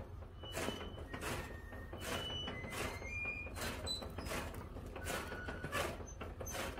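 Chaff cutter chopping green fodder: a regular chopping stroke about every two-thirds of a second over a steady low hum from the drive.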